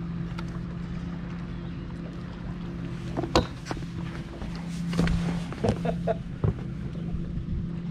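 A steady low electric hum from a bass boat, with a few sharp knocks and rattles of the camera being handled about halfway through.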